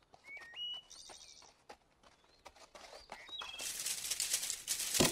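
Cartoon forest sound effects: short bird chirps and light tapping hoofsteps, then, about three and a half seconds in, a loud rustle of leaves that builds as the fawn noses into a bush.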